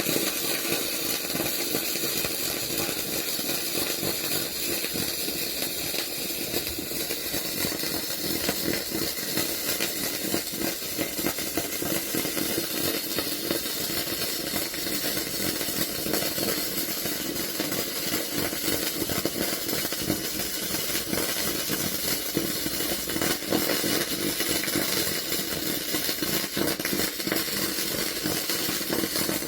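Wire-feed (MIG) welding arc on a 2 mm steel lap joint, a steady buzzing crackle that strikes up suddenly and burns without a break.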